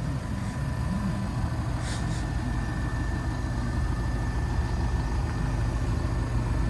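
Volkswagen Golf GTD (sixth generation) 2.0-litre turbodiesel engine idling steadily. A faint steady high whine joins about two seconds in.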